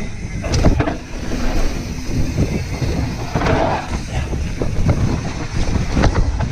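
Mountain bike rolling fast down a dirt and gravel trail: steady tyre noise on the loose surface with wind buffeting the microphone, broken by several sharp rattles and clunks from the bike over bumps.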